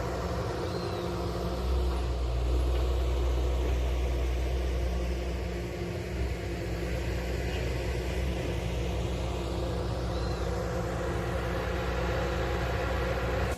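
Hydraulic excavator's diesel engine running steadily under work, growing louder for a few seconds about two seconds in.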